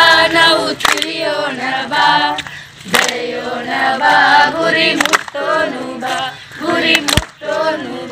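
A group of young voices singing a Kannada song about learning together, in phrases of about two seconds with short breaks between them.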